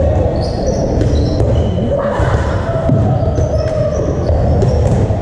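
Rubber dodgeballs being thrown and bouncing on a wooden court floor in a large hall, mixed with short high sneaker squeaks and players' voices.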